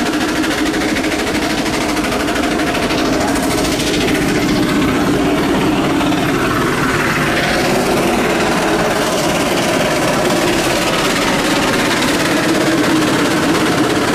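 Antique steam traction engine running steadily under load, driving a long flat belt to a scale-type power-testing brake: a loud, continuous, rapid mechanical clatter.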